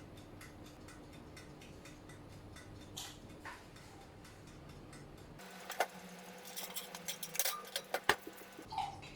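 Steady, rapid, faint ticking. A stretch of sharp clicks and clattering runs from about five and a half to eight and a half seconds in.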